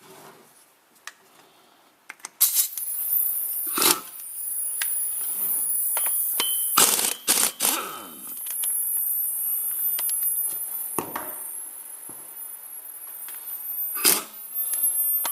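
Workshop noise: a steady high hiss sets in about two seconds in, with several sharp metal clanks and knocks over it.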